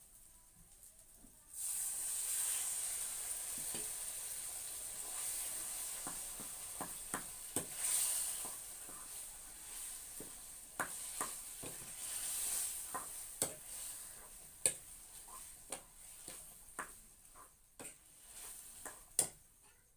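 Food frying in hot oil in a pan: a sizzle starts suddenly about a second and a half in and slowly dies down, with a ladle clicking and scraping against the pan as it is stirred.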